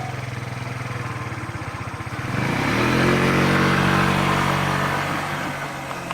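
A vehicle engine running with a rapid, even pulsing, then accelerating a little over two seconds in: it gets louder and its pitch rises.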